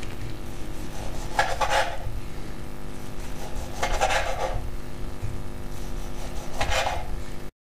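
Sharp kitchen knife slicing through a firm pea-flour vegan salami on a wooden cutting board: three separate cuts, about two and a half seconds apart, each a short scrape.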